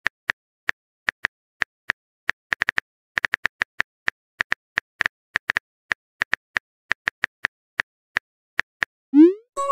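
Simulated phone-keyboard tapping: short, light clicks at an uneven pace of a few per second, as a text message is typed out. Near the end a quick rising swoosh marks the message being sent.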